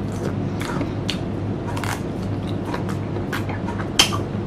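Close-up crunchy chewing of a slice of unripe green mango: a string of short crisp crunches, with a sharper one about four seconds in, over a steady low hum.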